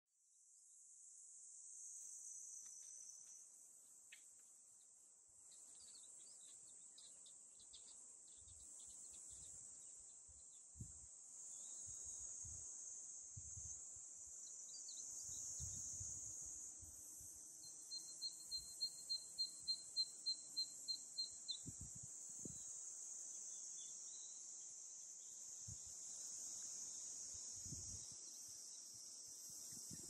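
A summer cicada chorus, a steady high-pitched drone. Partway through, a bird calls a quick run of about a dozen repeated notes, about four a second, getting louder. Occasional faint low thuds.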